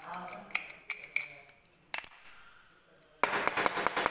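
Brass padlock being handled, with a few sharp metal clicks. About three seconds in, it is shaken hard, its steel shackle rattling in a rapid, dense run of clicks.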